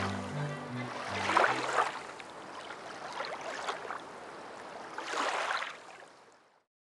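The last low notes of a string music track die away. A rushing, water-like noise then swells twice and fades out to silence near the end.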